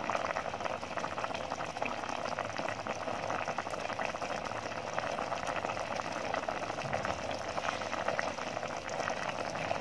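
Pot of pumpkin and spinach soup boiling: steady bubbling with many small pops.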